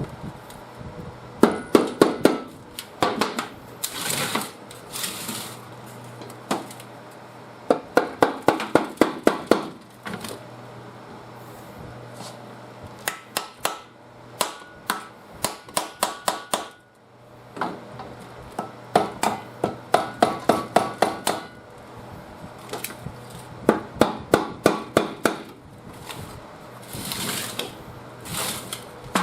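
Hammer blows on metal in quick runs of six to ten strikes, about five or six a second, repeated several times with pauses between: tapping at the seized engine of a hammer knife mower to work its parts loose. A few short hisses fall between the runs.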